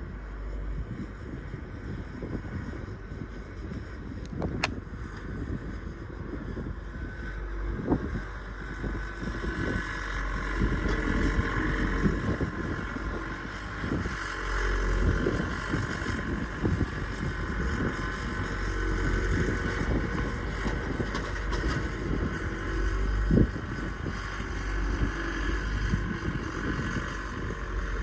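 Engine running steadily, with wind buffeting the microphone.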